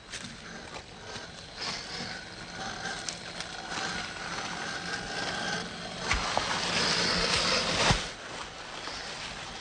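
Axial SCX10 III Gladiator RC crawler driving over rock and dry leaves: its electric motor and drivetrain whirring as the tyres crunch and scrape. It grows louder partway through, with two sharp knocks, the louder one near the end.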